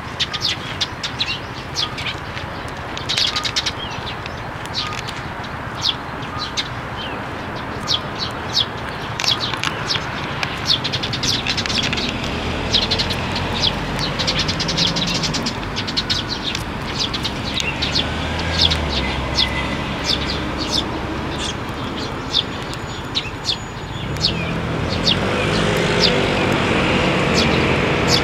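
Eurasian tree sparrows chirping, many short chirps one after another. A vehicle engine's low hum comes in about halfway and grows louder near the end.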